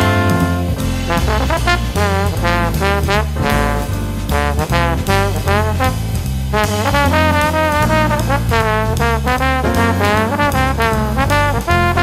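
Upbeat instrumental background music led by brass, trombone and trumpet in a jazzy swing style, over a steady bass.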